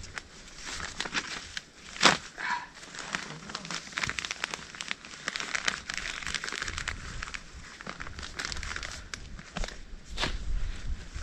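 Dry leaves and twigs crunching and crackling as someone moves through them, with one sharp snap about two seconds in.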